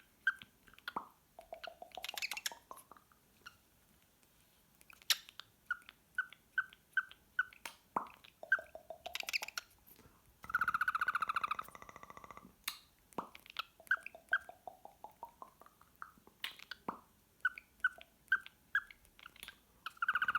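Cockatiel whistling its song: runs of short, quick chirped notes, rising slides, and a long buzzy held note, the phrase repeating near the end, with scattered sharp clicks between.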